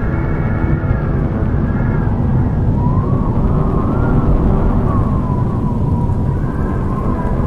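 Spooky ambience soundscape: a loud, deep rumbling drone with a thin, siren-like tone wavering up and down above it from a little before halfway.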